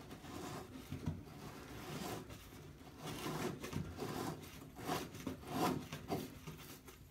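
Old corroded metal bathtub drain flange being worked and turned out of the drain by hand, a series of short irregular scraping, rubbing strokes.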